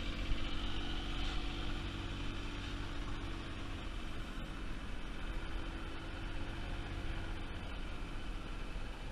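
Honda four-stroke outboard motor on a sailboat's stern running steadily while the boat motors along.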